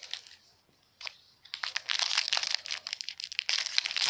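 A trading-card pack wrapper being crinkled and torn open: a short crackle, a pause, then a long run of sharp crinkling and tearing from about a second and a half in.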